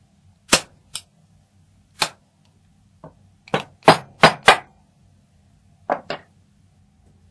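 Sharp metal taps from a hand tool striking a retaining ring onto the core of an Ikon euro-profile lock cylinder. There are about ten taps, single ones early on, a quick run of four or five around the middle and a final pair near the end.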